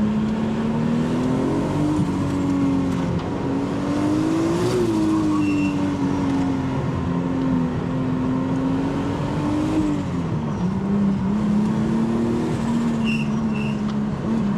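Nissan Skyline GT-T's 2.5-litre RB25DETT Neo inline-six running under way, its revs climbing and easing with the throttle, with a sharp drop in pitch about ten seconds in. A few brief high chirps sound over it.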